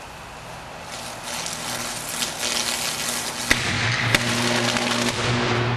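High-voltage arc at a burning wooden power pole: crackling and popping that builds from about a second in, with two sharp bangs about halfway through, over a steady low hum.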